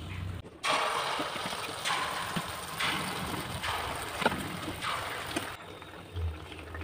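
Malpua batter deep-frying in hot oil in a pan, a steady sizzle that swells about once a second and cuts off abruptly near the end.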